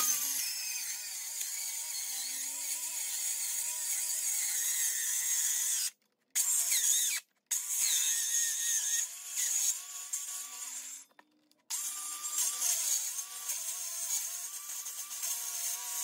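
Cordless 19.2-volt circular saw cutting a shallow groove in particleboard, its motor whine wavering as the blade labours. The sound breaks off abruptly three times for a moment. The saw keeps binding in the cut, which is put down to nails buried in the board.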